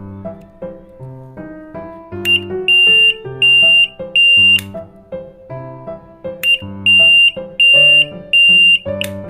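Electronic burglar alarm beeping: two bursts of four shrill, steady beeps, about two a second, the second burst coming about two seconds after the first. Piano music plays underneath.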